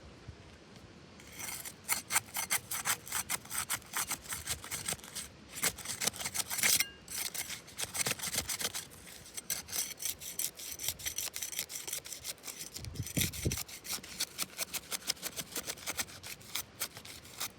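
Asphalt shingle tab being worked loose from its sealant strip, with quick repeated scraping strokes that start about a second and a half in, ease off briefly past the middle, and include one low thud.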